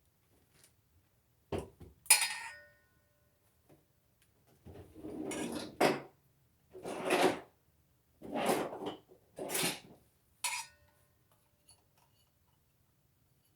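Kitchen utensil knocking and clinking against a bowl, with one sharp ringing clink about two seconds in. Then come four short scraping strokes and a last clink near the end, as applesauce is scooped into a mixing bowl.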